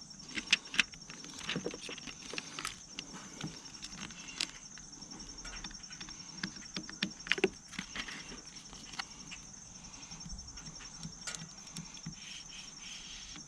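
Irregular clicks, taps and light rustling from handling a plastic screen-protector film on a motorcycle radio, with a few sharper clicks near the start and about two-thirds of the way through. A steady pulsing high insect trill runs underneath.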